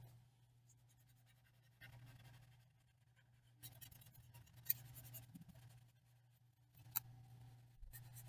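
Faint scratching of a graphite pencil's side shading on lined notebook paper, in three stretches of short strokes with a couple of small clicks. A steady low hum runs underneath.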